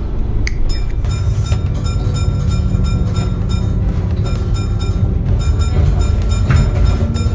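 Steady low rumble of a moving bus under background music, with short repeated high pitched notes.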